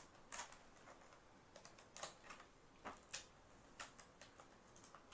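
Faint, irregular clicks of scissors snipping the tape along the edge of a plastic toy makeup case.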